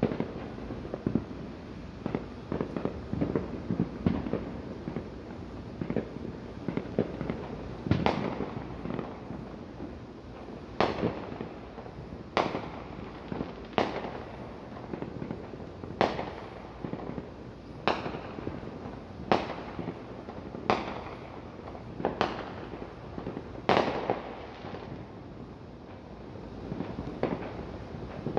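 Fireworks going off: a dense rattle of small pops for the first several seconds, then single sharp bangs roughly every one and a half seconds, each trailing off in an echo.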